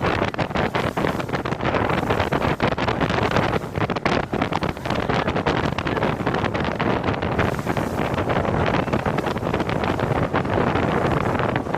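Heavy wind buffeting on a microphone mounted on the windshield of a Sea Ray 280 bow rider underway at speed, with the boat's motor and the rush of water under the hull beneath it.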